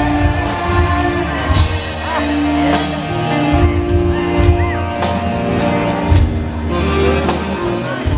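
Live rock band playing through a PA system: electric guitars and bass holding sustained chords over drum hits.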